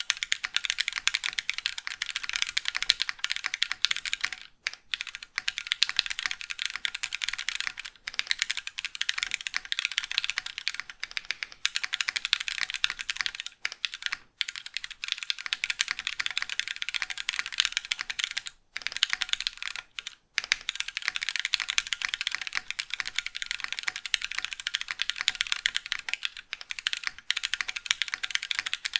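Fast, continuous typing on a mechanical keyboard fitted with Gateron Slate linear switches, stock and unlubricated, a dense patter of keystrokes broken by a few brief pauses.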